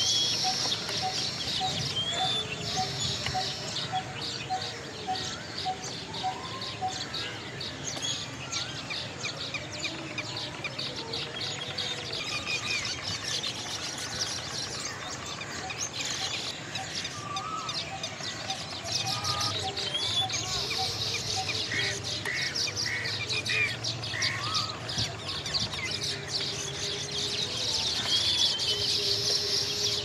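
Busy chorus of wild birds: constant high chirping with assorted calls over it, including a steady series of evenly spaced notes for the first several seconds and a few short gliding calls later on.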